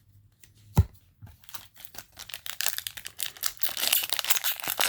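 A single sharp knock a little under a second in, then a foil booster pack crinkling and tearing open, the crackling building up and growing loudest near the end.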